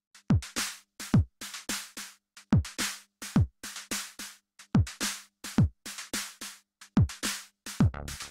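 Background electronic music: a drum-machine beat of deep kick drums that drop in pitch, falling in pairs, with snare and hi-hat hits between them.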